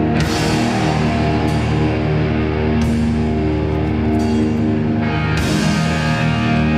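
Hardcore punk band playing live: loud electric guitars and drums, heard from among the crowd, with a cymbal crash about every second and a half.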